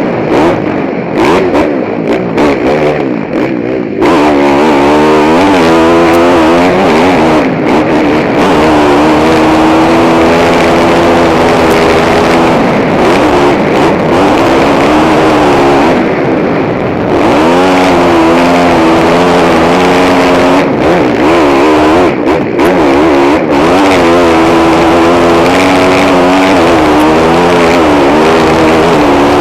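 KTM motocross bike's engine, heard from the rider's helmet, revving hard and loud with its pitch climbing and falling again and again as the throttle is worked through the gears, with short throttle-offs near the start and about halfway through.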